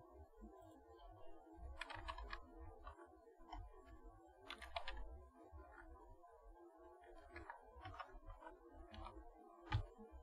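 Faint computer keyboard typing: scattered key clicks in small clusters as an address is typed in.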